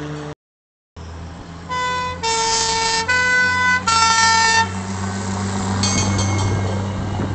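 Dennis F28 fire engine sounding its two-tone warning, four notes alternating high and low over about three seconds. Its engine drone then swells as it drives close past.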